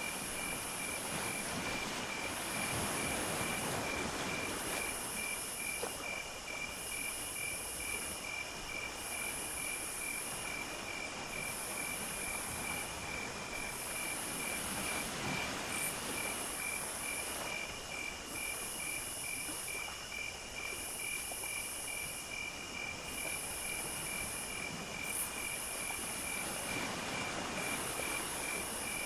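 A chorus of crickets and other insects: one chirps in a steady, rapid, even rhythm while a higher, hissing buzz pulses on and off about every two seconds, over a soft rushing background that swells and fades.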